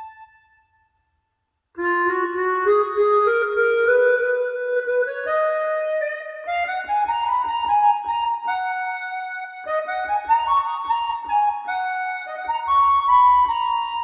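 Harmonica music played back through Mission 701 bookshelf speakers. A held note fades away, and after about a second of silence a melody of chords starts, climbing step by step.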